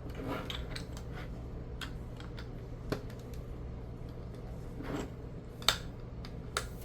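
Plastic LEGO pieces clicking and tapping as they are handled and pressed together: scattered small clicks, with a sharper snap near the end, over a low steady hum.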